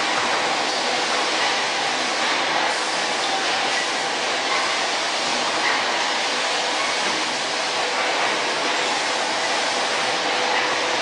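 Steady running noise of factory machinery: an even rushing sound at a constant level, with no distinct knocks or clicks.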